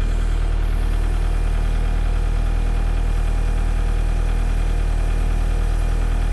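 Kubota L4701 tractor's diesel engine running steadily at a constant speed while it drives the backhoe's hydraulics as the boom and thumb are moved.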